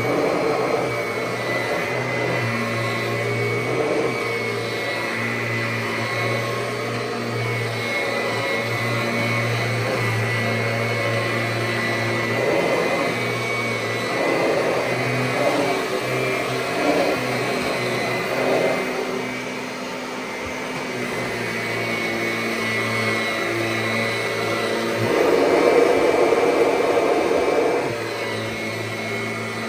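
1999 Kirby G6 upright vacuum cleaner running steadily on carpet, a motor whine over the rush of air. It swells louder for a few seconds near the end, then settles back.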